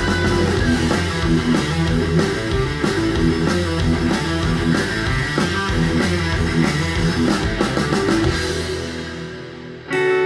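A stoner-metal track with guitar and drums, played through B&W Vision V201 bookshelf speakers and picked up in the room. It fades out about nine seconds in, and a soft-rock track with guitar starts just before the end.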